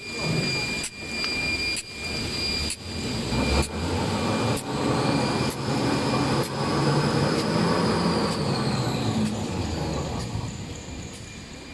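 XY-TQ-A-C semi-automatic kitchen towel paper making machine running, with a steady high whine and a regular knock a little under once a second. It gets quieter near the end.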